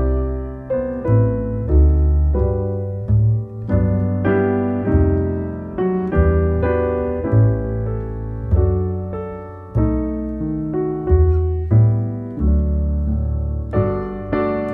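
Piano music: slow chords and single notes, each struck and left to ring and fade before the next.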